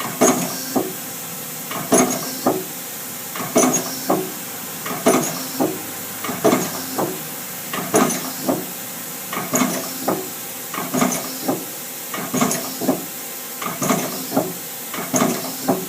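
Daewoo Lynx 200A CNC lathe's unidirectional tool turret indexing from station to station, giving a pair of clunks about every one and a half seconds over a steady machine hiss.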